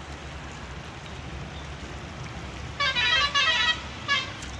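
A vehicle horn sounds in a warbling, pitched blast about three seconds in, two long honks back to back and then a short one, over a steady low background rumble.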